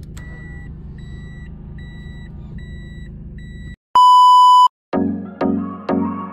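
A car's warning chime beeping over and over, about once every 0.8 seconds, over the steady hum of the car inside the cabin. It cuts off abruptly a little under four seconds in. A short, loud electronic bleep follows, the loudest sound here, and then music with plucked notes about twice a second starts.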